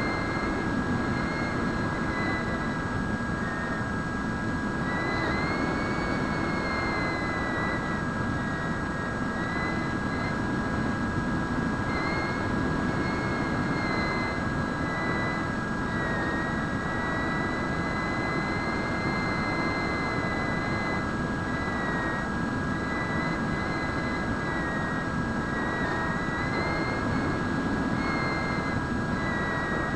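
Electric motor and propeller of a Bixler foam RC plane in flight, whining steadily with its pitch wavering slightly up and down as the throttle changes, over a constant rush of wind on the onboard microphone.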